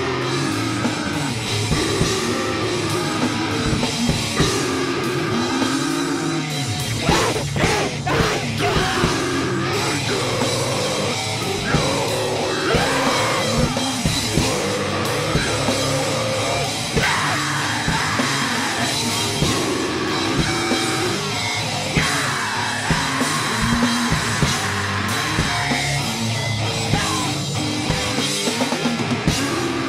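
A live band playing loud, distorted heavy punk/metal: pounding drum kit, distorted electric guitars and bass, with a vocalist yelling over it. It is heard through the studio's own mixing-desk recording.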